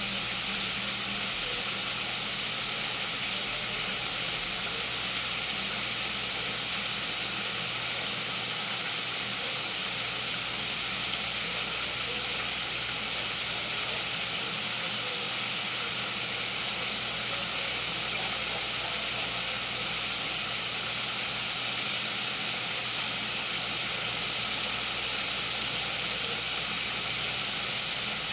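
Breaded chicken wings pan-frying in oil in a cast-iron skillet: a steady, even sizzle.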